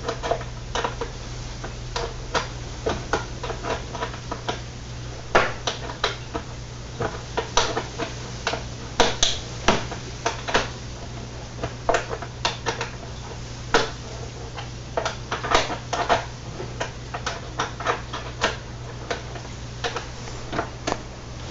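Hand ratchet and socket being worked in short strokes on a bolt of a turn signal lamp housing, giving irregular metallic clicks and clinks, a few to the second. A steady low hum runs underneath.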